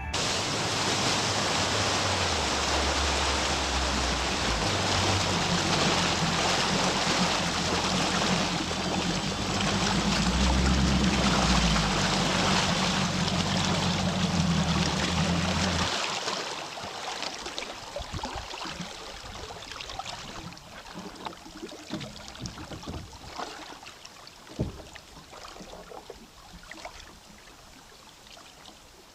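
Bass boat outboard motor running steadily at speed, with rushing water and wind over it. About two thirds of the way through, the engine sound cuts off abruptly, leaving fading water hiss with a few knocks.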